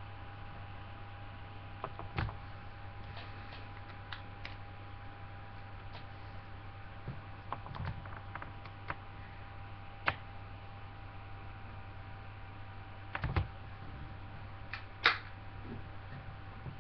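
Steady electrical hum with a faint high tone underneath, broken by scattered clicks and knocks as an eyeshadow palette is handled; the loudest knocks come about two, thirteen and fifteen seconds in.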